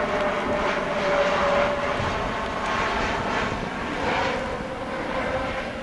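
Airbus A320-family jet airliner flying low overhead on approach with its landing gear down: a steady jet engine roar with a held droning tone that drops slightly in pitch about four seconds in.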